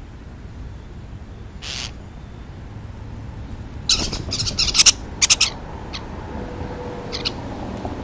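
European starlings giving short, harsh, scratchy calls: one about two seconds in, then a run of several between about four and five and a half seconds, and one more near the end. A steady low rumble runs underneath.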